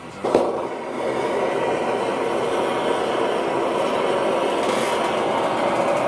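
Two propane hand torches firing crosswise into a homemade bucket blast furnace. A sharp pop comes about a third of a second in, then the flames burn with a steady rush that swells over the first second.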